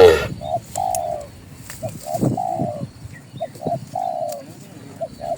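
A dove cooing repeatedly: a run of short, slightly falling coos.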